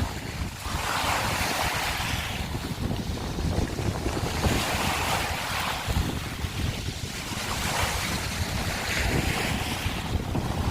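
Sea waves breaking and washing over a beach of broken scallop shells, in hissing surges a few seconds apart, over a steady low rumble of wind on the microphone.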